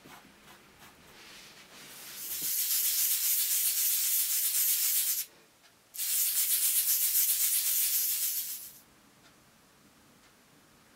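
A brush scrubbed rapidly over a small wire-mesh spatter screen to spray fine paint droplets: a dry, scratchy hiss in two spells of about three seconds each with a short break between.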